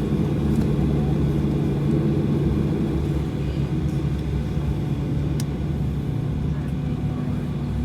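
Steady low rumble and hum of cabin noise inside a Boeing 737-800 as it taxis toward the gate, with a light click about five seconds in.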